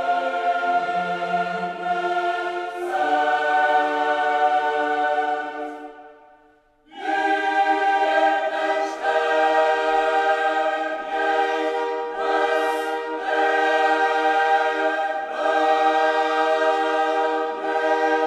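Choral music: a choir singing long held chords. It fades out about six seconds in, and a new held chord starts about a second later.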